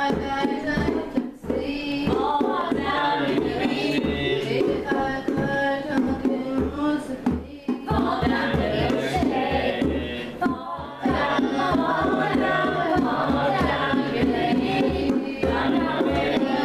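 A group of voices singing a folk song together, over a pair of hand drums beaten in a steady rhythm.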